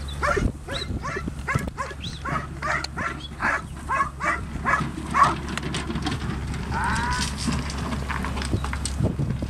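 A dog barks rapidly and repeatedly, about two short barks a second, stopping about five and a half seconds in. A sheep bleats once, a longer call, about seven seconds in.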